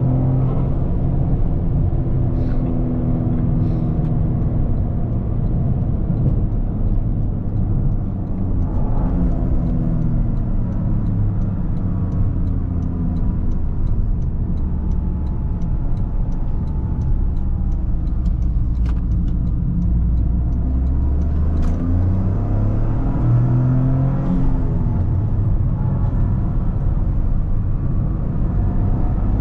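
Toyota GR Corolla's turbocharged 1.6-litre three-cylinder engine on the stock exhaust, revving up and dropping back several times as it is driven through the gears, with turbo flutter when the throttle is lifted.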